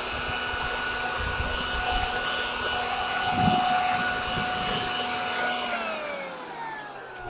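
Electric leaf blower running with a steady whine, then switched off near the end, its pitch falling as the motor winds down.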